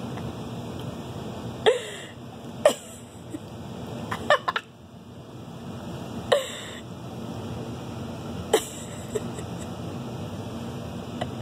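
Baby's short coughs and sputters while being spoon-fed oatmeal, about seven brief bursts spread irregularly over a steady low hum.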